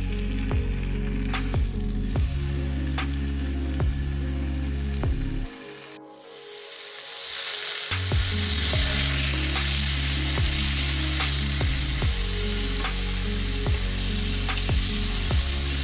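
Fish pieces frying in hot oil in a nonstick pan, a steady sizzle that breaks off briefly about six seconds in and returns louder. Background music plays underneath.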